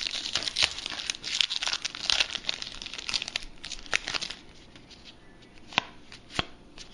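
Crinkly foil wrapper of a 2008 Topps baseball card pack being torn open and crumpled for about four seconds, then a few single sharp ticks as the cards are handled.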